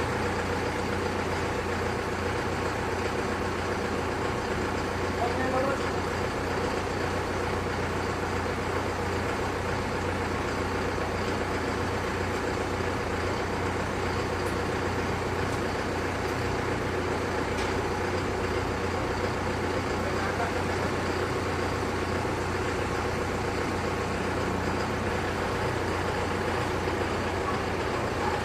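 A large diesel engine idling steadily at an even pitch, with no revving.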